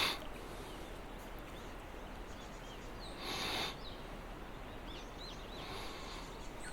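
A river's steady rushing flow, with small birds chirping here and there over it. About three seconds in, a brief louder hissing swish stands out.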